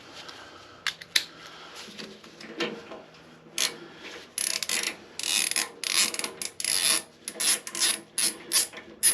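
Hand ratchet wrench worked in a run of short rasping strokes, two to three a second, from about a third of the way in, loosening the front brake caliper of a Harley-Davidson springer front end; a few sharp metal clicks come before it.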